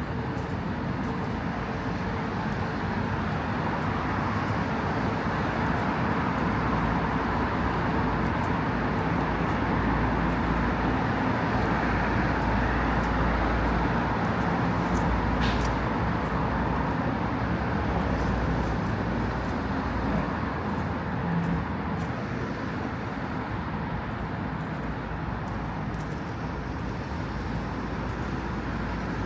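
Steady city road traffic: cars passing in a continuous rush that grows slightly louder around the middle, with one brief sharp tick about halfway through.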